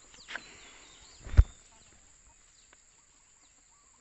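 A single sharp thump about a second and a half in, with a smaller knock just before it, over faint bird chirps.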